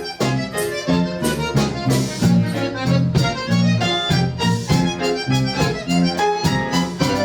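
Accordion playing a lively tune, the melody over a regular oom-pah pattern of bass notes and chords.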